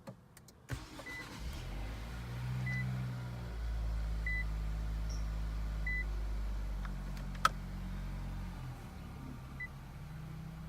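2019 Infiniti QX50 moving slowly with a low rumble, a short high beep repeating about every second and a half, and one sharp knock about seven seconds in, the knocking noise from the front wheel.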